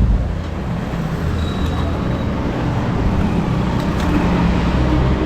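Street traffic: a steady low rumble of passing vehicle engines and road noise.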